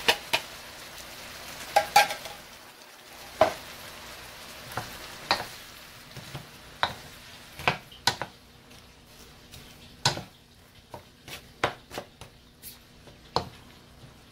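Chicken and coconut milk being stirred in a pan: a cooking utensil knocks and scrapes against the pan at irregular intervals, over a light sizzle that fades away about halfway through.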